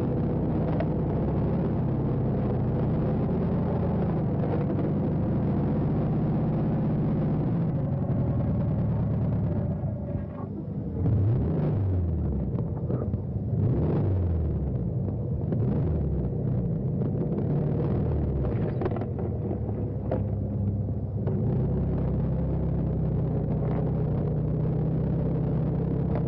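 Car engine running with a steady low hum. Around the middle its pitch falls several times as the revs drop, then the steady running resumes.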